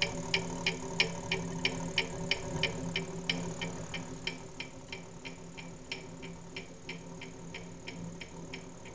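General International 25-650 lathe running, with a steady hum and a sharp, regular ticking about three times a second that grows gradually quieter. The owner suspects a bearing in the motor.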